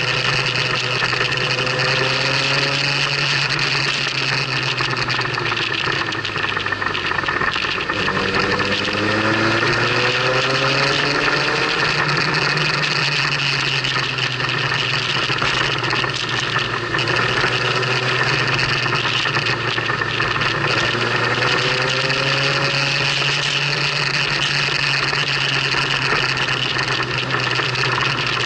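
Motorcycle engine running under way, its note rising several times as it accelerates, over steady wind rush.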